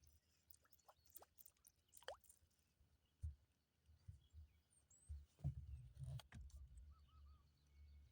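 Near silence, with faint low thumps and knocks, the loudest about five and a half seconds in, and a few faint sharp clicks.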